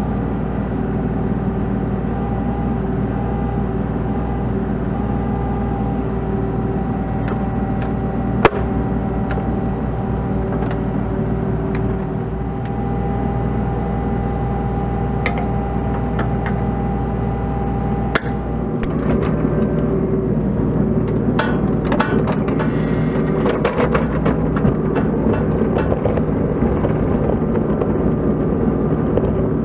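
Mini excavator's diesel engine running steadily, with two sharp metal clanks about eight and eighteen seconds in. In the last ten seconds the bucket works soil, adding scraping and rattling of dirt and stones over the engine.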